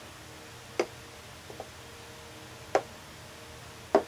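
Wooden chess pieces set down on a chessboard while a position is being reset: three sharp clacks, the last the loudest, with two faint taps after the first.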